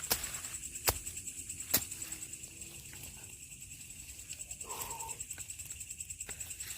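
A night chorus of crickets and other insects, a steady rapid pulsing trill. Three sharp clicks come in the first two seconds, the second and third the loudest, and a short faint sound follows about five seconds in.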